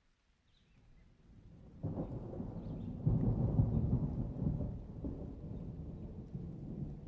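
A long roll of thunder. It swells in from near silence, jumps up sharply about two seconds in, peaks around three to four seconds in, then slowly dies away.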